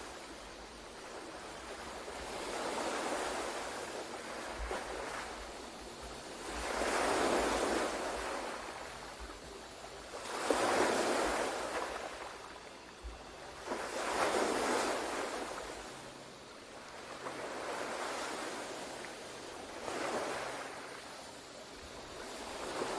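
Ocean waves washing in and drawing back, about six slow swells, each rising and fading over three to four seconds.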